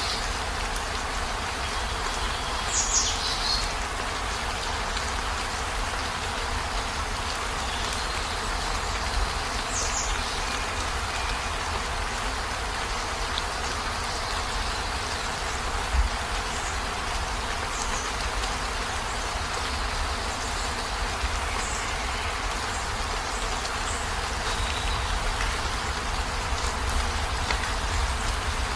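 Steady heavy rain on a van roof and windows, heard from inside, with a low rumble underneath. A few brief high-pitched sounds stand out about three and ten seconds in.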